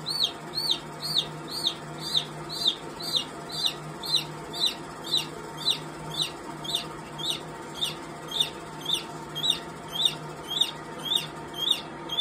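A domestic chick peeping in distress over and over, about two high peeps a second, each a quick rise and fall in pitch, while it is held in a rattlesnake's jaws after the strike.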